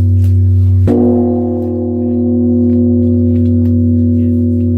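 Large Korean temple bronze bell struck once, about a second in, while the deep hum of the previous strike is still sounding. It gives a long, deep, steady hum with higher ringing tones above it.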